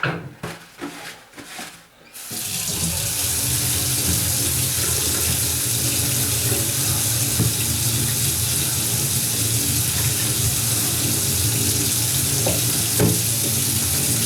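A few light knocks, then a kitchen tap is turned on about two seconds in and water runs steadily into the sink.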